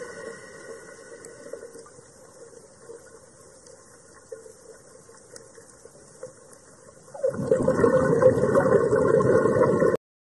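Underwater water noise, a rushing hiss. It eases off after the first second or two, swells up loud again about seven seconds in, and cuts off suddenly near the end.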